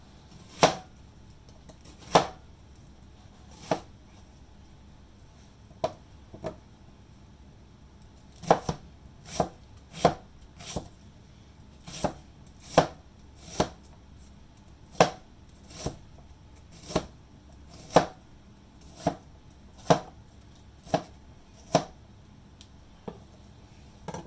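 Kitchen knife chopping an onion on a cutting board: single sharp strokes, a few widely spaced at first, then a steadier run of about one or two cuts a second.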